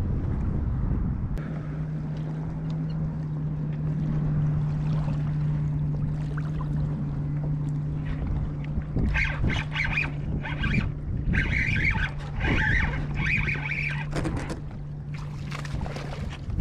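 Spinning reel being cranked as a porgy is fought up to a kayak, with bursts of reel whirring in the second half and water splashing as the fish reaches the surface near the end. A steady low hum runs underneath throughout.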